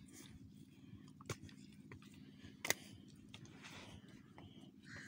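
Faint handling noise as fish are worked out of a mesh net by hand: soft rustling of the netting with a few sharp clicks, the loudest a little under three seconds in.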